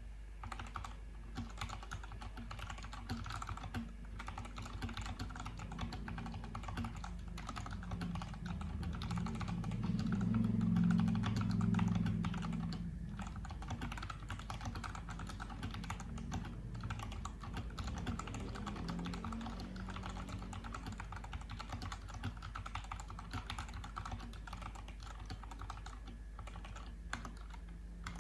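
Fantech Maxfit61 mechanical keyboard with red linear switches being typed on in a steady stream of rapid key clacks. A low hum swells and fades about ten to twelve seconds in.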